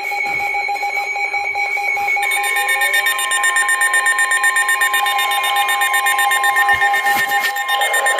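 Weather alert radios sounding their alarm tones together, several steady beeping tones at different pitches. About two seconds in they are joined by a fast pulsing alarm beep. The alarms are triggered by an incoming severe thunderstorm warning that covers the listener's own area.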